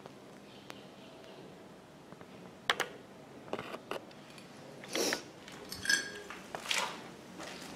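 Footsteps crunching over a debris-strewn floor, roughly one a second from about five seconds in. They follow a few sharp metallic clinks and knocks about three seconds in.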